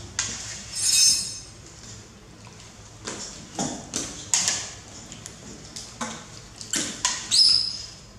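A metal ladle knocking and scraping against an aluminium cooking pot of soup as it is stirred and dipped, a string of separate clinks, one ringing briefly about a second in. Near the end comes a short, high, rising squeak.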